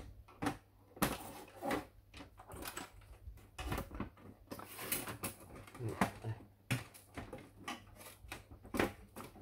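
Irregular clicks and knocks of plastic parts and screws being handled as a Canon LBP251 laser printer is taken apart, with a low steady hum underneath.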